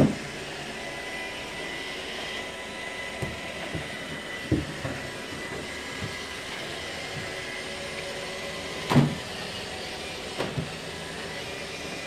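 iRobot Roomba robot vacuum running, a steady whir with a faint steady whine. A few short knocks break through it, the loudest about nine seconds in.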